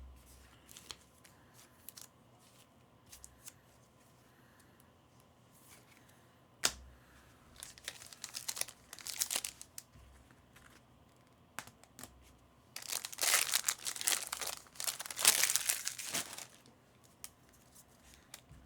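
Plastic trading-card pack wrapper being torn open and crinkled, in two bursts of rustling about halfway through and near the end, with scattered light clicks of card handling between.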